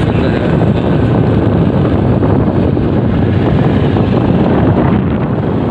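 Loud, steady wind rush on the microphone of a moving vehicle, mixed with the vehicle's running noise.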